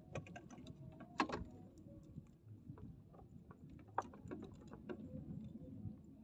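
A run of small clicks and taps from hands handling fishing tackle in a wooden boat, with two sharper knocks about a second in and again about four seconds in.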